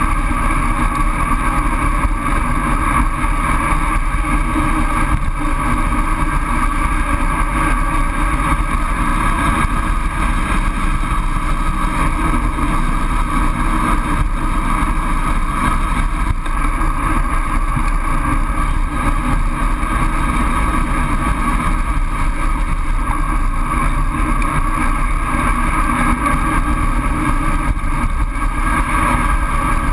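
Steady rush of wind noise on a GoPro camera during a fast road-bike descent, with tyre and road noise beneath, unchanging throughout.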